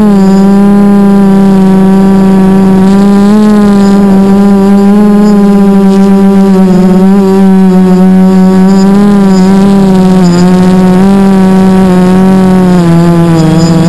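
Quadcopter's four Sunny Sky 2216 1250 kV brushless motors and propellers running, heard loud from the camera on board: a steady hum whose pitch wavers a little with the throttle and dips slightly near the end.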